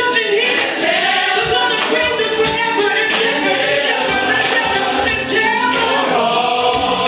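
A group of voices singing a gospel song, with percussive beats running through it.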